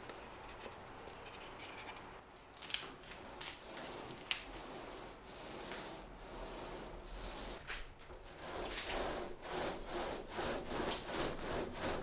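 Paint roller rolling two-part polyurethane into the fabric skin of a skin-on-frame kayak deck: repeated rubbing strokes, faint at first, then faster and louder over the last few seconds.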